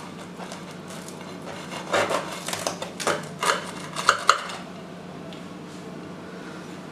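Knife cutting through a baked pizza, the blade scraping and clicking against the baking tray in a quick run of strokes for about two seconds, starting about two seconds in; otherwise a faint steady hum of room tone.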